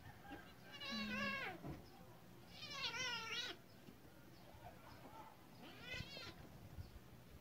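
A cat crying out in distress while a dog bites and shakes it: three high, wavering cries, the third one short.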